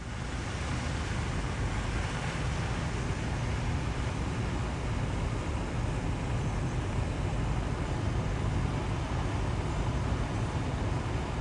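Steady road and wind noise of a moving car, a deep even rush.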